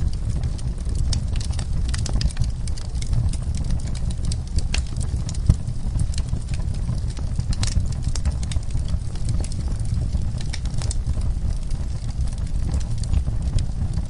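Wood logs burning in a fireplace: a steady low rumble of flame with frequent, irregular crackles and sharp pops, one pop louder than the rest about five and a half seconds in.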